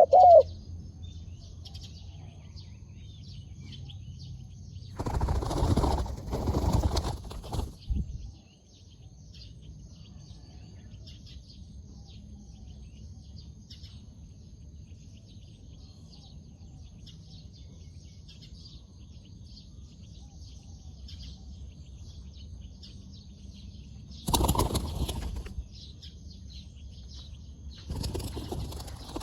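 Bursts of a dove's wings flapping: a double burst about five seconds in, another around twenty-four seconds and one near the end. Between them are faint chirping birds and a steady high insect tone.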